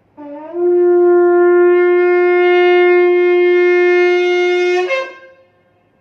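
Shofar blown in one long blast of about five seconds: a brief lower note slides up into a steady held tone rich in overtones, which breaks off abruptly with a short crack at the end.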